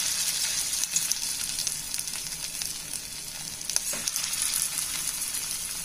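Cornflour-coated chicken pieces sizzling in hot oil in a frying pan as they are spooned in one at a time to deep-fry, a steady hiss with a couple of light clicks.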